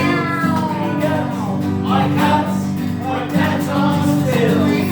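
A group of voices singing along to a song over steady instrumental accompaniment, with sung meows.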